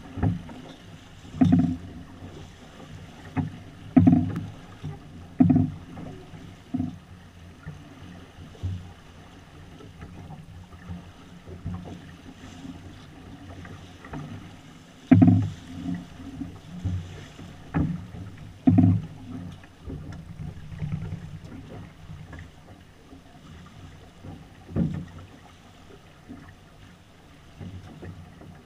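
Small sailboat under sail: water rushing along the hull, with irregular low thuds of waves slapping against the hull, about a dozen of them and the strongest a few seconds in and again near the middle.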